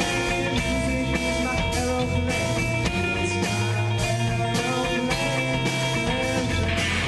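A live rock band playing: an electric guitar over a bass line and a drum kit keeping a steady beat.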